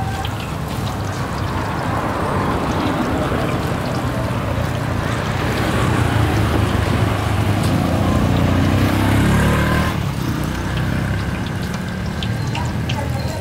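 Hot oil sizzling in a large pan of deep-frying battered food, over the low steady sound of an engine running close by that swells toward the middle and drops back about ten seconds in.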